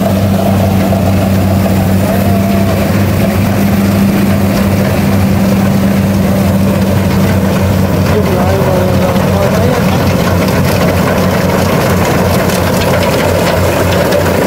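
Tracked rice combine harvester running steadily while it cuts, with a steady low engine drone.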